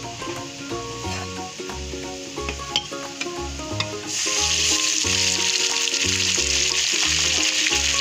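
Sliced onions frying in hot oil in a steel kadhai, sizzling lightly. About four seconds in, a wet ground tomato, chilli and garlic paste is poured into the hot oil and the sizzle suddenly becomes much louder and stays loud and steady.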